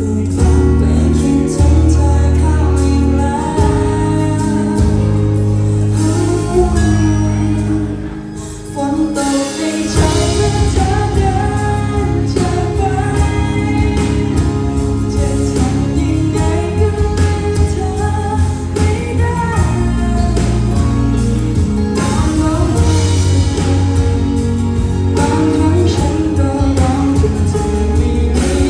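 A woman singing a ballad live into a microphone with a band including electric guitar. After a brief dip a little past eight seconds in, the band comes back in fuller from about ten seconds.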